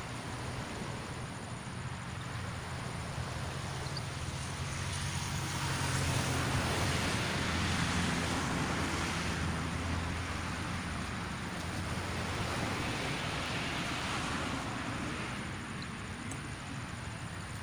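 Distant engine noise: a low steady hum with a broad rushing sound that swells and fades, most loudly in the middle and again more weakly later on.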